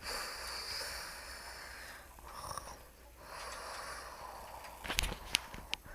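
A person fake-snoring while pretending to sleep: long, noisy, snore-like breaths, then a few sharp clicks near the end.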